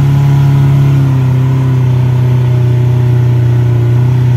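Tour jeep's engine running at steady revs while driving, a loud, even low drone that settles slightly lower in pitch in the first couple of seconds.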